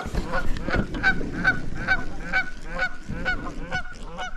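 A flock of geese honking, with short calls following one another about three times a second.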